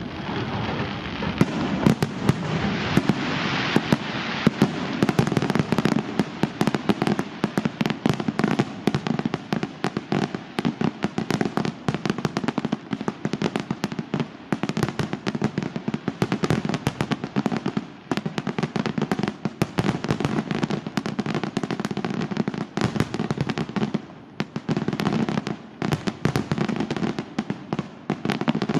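La Rosa aerial fireworks display firing a dense, continuous barrage: many sharp bangs and crackling reports every second with no real pause, thinning only briefly near the end.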